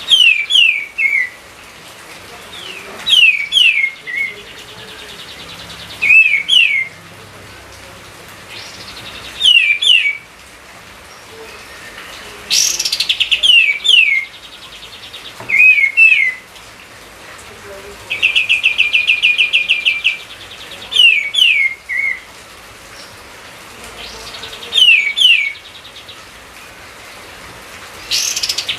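A songbird singing a short phrase of two or three quick downslurred whistles, repeated about every three seconds. A little past the middle it gives one rapid trill lasting about two seconds.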